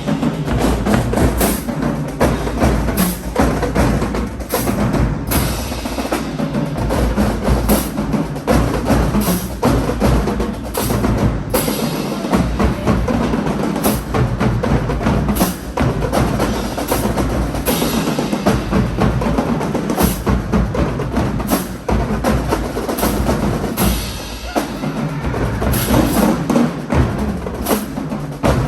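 Marching band drumline playing a loud, fast percussion cadence on snare and bass drums, with sharp accented hits every second or two.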